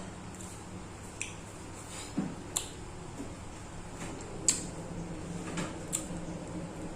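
Eating sounds: a handful of sharp clicks and smacks, spaced irregularly, the loudest about four and a half seconds in, over a steady low hum.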